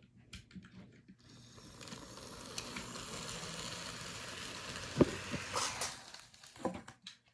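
N scale switcher locomotive's small motor and gears running as it pushes cars along the track, building up about a second in and stopping about six seconds in. A sharp click about five seconds in, with a few lighter clicks near the end.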